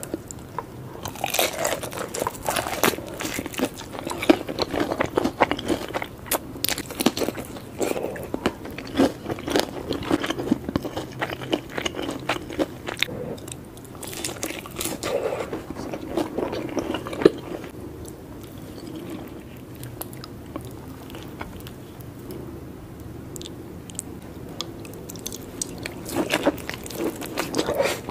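Close-miked eating of crispy fried chicken and chicken nuggets dipped in cheese sauce: crunchy bites and chewing, full of sharp crackles. The crunching thins out past the middle and picks up again near the end.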